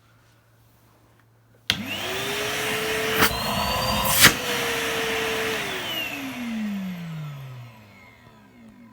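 Henry 160 vacuum cleaner switched on: its motor whines up to speed and runs steadily, with two sharp clicks, then is switched off and spins down with a falling whine. The freshly cleaned motor runs with nothing wrong.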